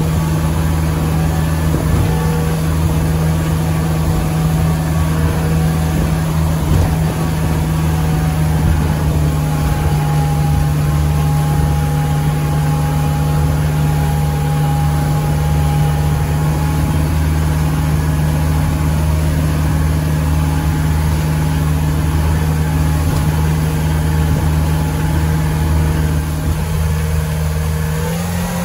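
Motorboat engine running steadily under way while towing an inflatable tube, with a steady rush of water from the wake. The engine note rises slightly near the end.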